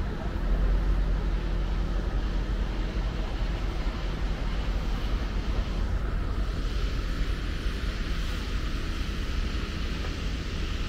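Steady low rumble of wind on the microphone over the sea's wash, with a soft hiss above it.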